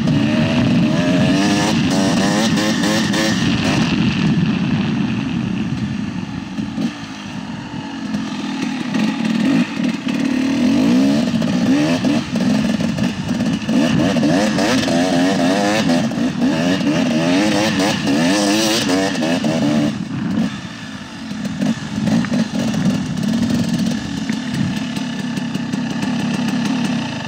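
KTM 300 XC-W two-stroke dirt bike engine running under throttle, its pitch rising and falling as the rider works the throttle. It eases off twice, about a quarter of the way in and again about three-quarters through, then picks up again.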